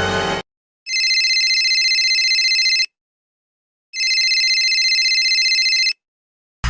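A telephone ringing: two rings of about two seconds each, a second apart, with a high, steady ringing tone.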